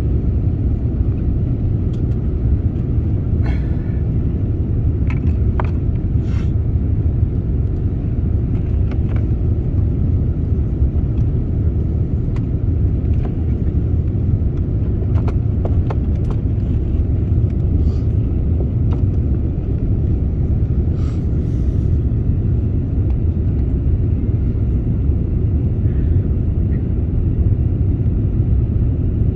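Steady low rumble of a jet airliner heard from inside the passenger cabin, with a few faint clicks and knocks.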